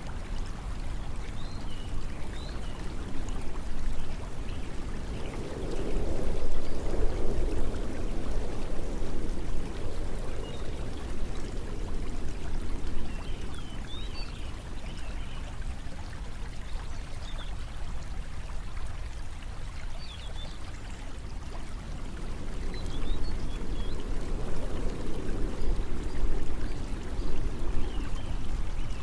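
Continuous rushing noise of a nature white-noise soundscape, swelling twice, with faint short high chirps scattered through it.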